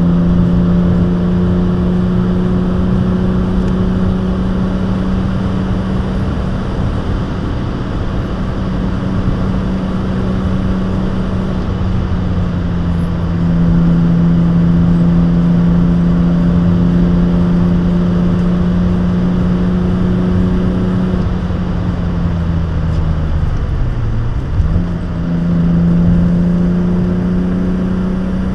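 BMW E36 323i's 2.5-litre straight-six with a stainless steel exhaust, heard from inside the cabin, pulling at steady high revs under load on track, with road and wind noise underneath. Near the end the revs dip sharply and then climb again.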